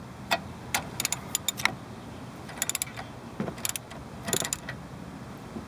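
Socket ratchet clicking in several short runs as a nut is run down onto the upper control arm bolt, while the bolt head is held with a combination wrench.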